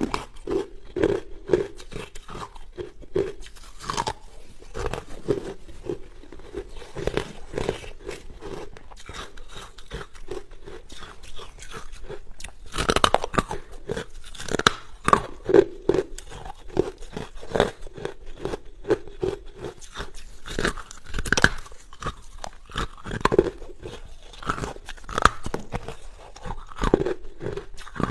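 Close-miked chewing of hard, crunchy ice: continuous cracking and crunching between the teeth, with louder sharp bites every second or two.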